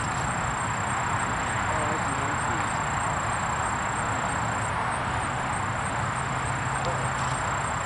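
Steady outdoor background noise: an even hiss with a faint low hum that comes and goes.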